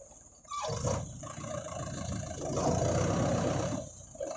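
Mahindra 585 DI tractor's diesel engine running, starting about half a second in and dropping away briefly near the end.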